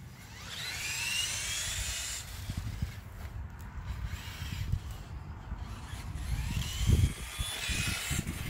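Tamiya M02L radio-controlled car's electric motor and gears whining, the pitch rising and falling as the car speeds up and slows, once near the start and again near the end. Under it a low uneven rumble comes and goes, loudest about seven seconds in.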